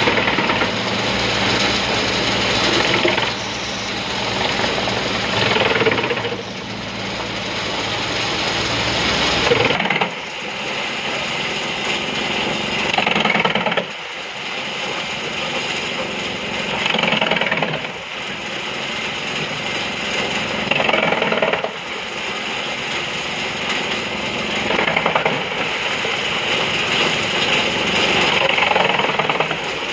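Pezzolato PTH 30/50 wood chipper, driven by a tractor through a shaft, running and chipping logs drawn in by its mechanical feed. Its steady machine noise rises in loud surges every three to four seconds as the wood is bitten and chipped.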